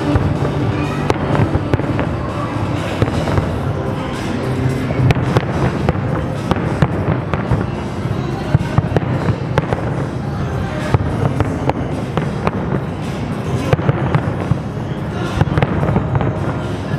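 Large aerial fireworks display going off continuously: dense, overlapping bangs and crackling, with sharp reports every second or so, over music playing underneath.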